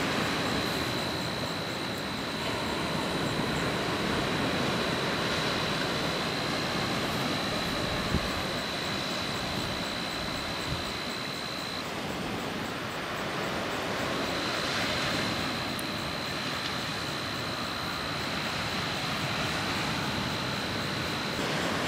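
Surf washing on the shore, a steady rushing noise that swells and eases every few seconds, with a thin steady high tone over it that drops out briefly about halfway through.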